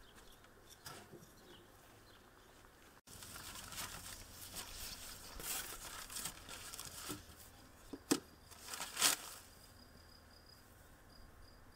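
Plastic sheeting crinkling and rustling as a wooden bee-box lid is lifted and handled, with two sharp wooden knocks about eight and nine seconds in, the second the louder. Near the end a cricket starts a steady, pulsing high trill.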